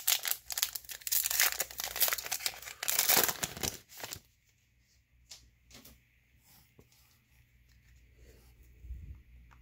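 Plastic wrapper of a Bowman baseball card pack torn open and crinkled for about four seconds. After that there are faint short clicks as the stack of cards is handled.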